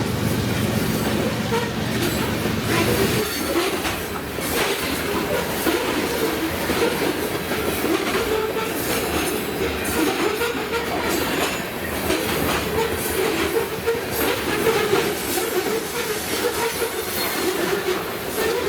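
Train rolling past, its cars clattering over the rail joints with some wheel squeal. A low engine drone from the locomotive fades out about three seconds in.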